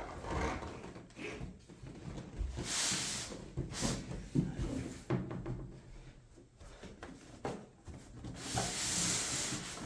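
Cardboard packaging scraping and rubbing as parts are pushed and slid out of a box, in a series of irregular scrapes, with longer ones about three seconds in and near the end.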